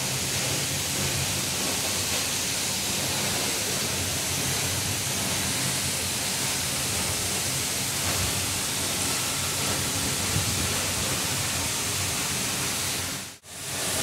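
Misol-Ha waterfall's curtain of water falling into its pool, a steady rushing hiss heard close up. It cuts out for an instant near the end, then resumes.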